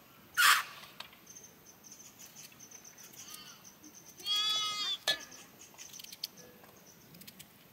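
A sheep bleats: a long, quavering call about four seconds in, with a fainter cry shortly before it. Near the start there is a brief, loud rush of noise, and a sharp click follows the bleat.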